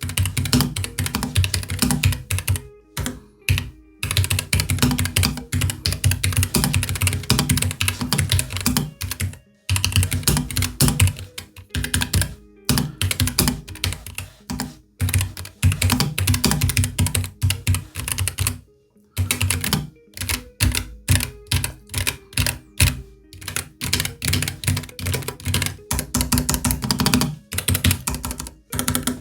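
Typing on a Keychron K3 Pro low-profile mechanical keyboard: fast runs of clacking keystrokes broken by brief pauses, with the longest pause about nineteen seconds in.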